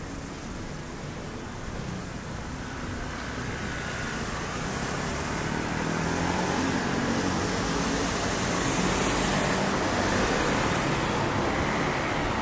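City street traffic: the engine and tyre noise of passing motor vehicles, growing louder over the first several seconds and then holding steady.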